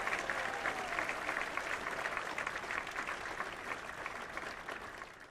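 Audience applauding with dense clapping, tapering off near the end.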